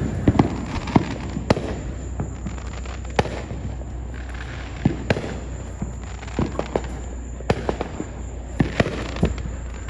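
Fireworks going off: irregular sharp bangs and pops, some coming in quick clusters, over a steady low rumble.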